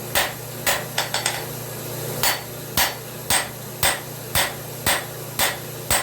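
Hand hammer blows on a hot railroad spike on an anvil, drawing out the tip: a sharp metallic strike about twice a second, with a quick run of lighter taps about a second in and a short pause before the steady blows resume. A steady low hum runs underneath.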